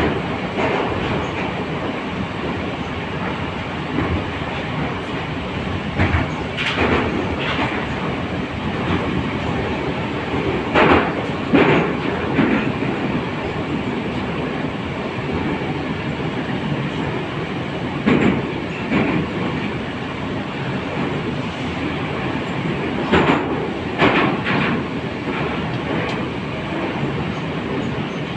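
Inside an 81-722.1 metro car running between stations: a steady rumble of the wheels and running gear, with short, louder clacks from the wheels on the track now and then.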